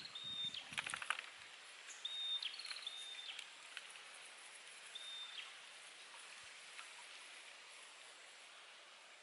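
Wet clay patted and slapped between the hands in a quick run of soft knocks in the first second or so. A bird repeats a short, flat, high whistle several times over steady outdoor background noise, then the hands press the clay quietly.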